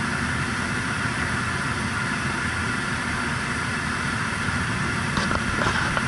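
Rheem rooftop gas heating unit running steadily with its burner lit: a steady rumble and hiss, with wind buffeting the microphone.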